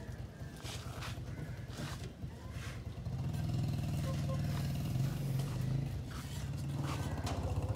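An engine running steadily, growing louder about three seconds in, with a few sharp knocks in the first few seconds.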